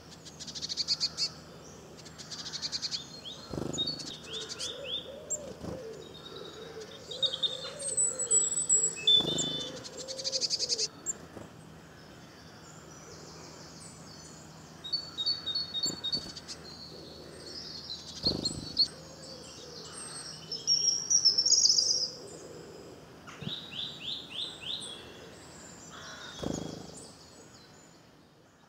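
Several wild songbirds singing and calling at once: overlapping twitters, short whistled phrases and quick trills, including a run of about six rapid repeated notes a little past the middle. A few soft low thumps come in now and then.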